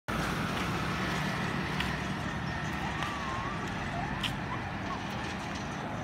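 Street traffic ambience: motorcycle engines running steadily along the road, with a few faint wavering chirps around the middle.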